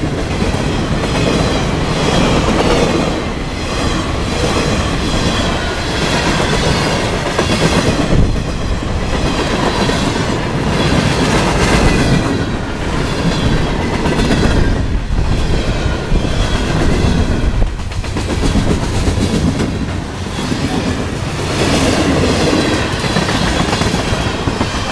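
Freight cars of a long mixed freight train rolling past: steel wheels clacking on the rails over a steady, loud rumble.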